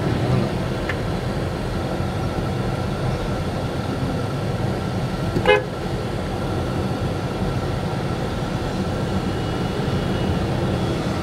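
Car driving along a road, heard from inside the cabin: a steady engine and road rumble. A vehicle horn gives one short toot about halfway through.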